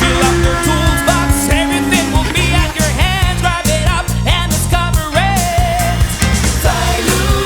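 Background rock music with singing over a steady beat.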